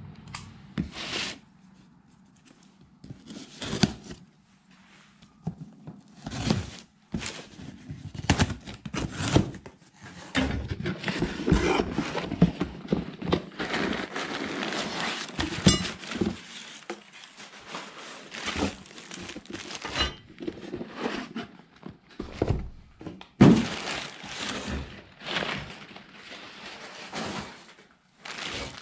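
A cardboard box being opened and unpacked by hand: cardboard and tape scraping, kraft packing paper and plastic bags crinkling, and dull thunks as boxed and bagged metal rocker-arm parts are set down on a workbench. The loudest thunk comes about three-quarters of the way through.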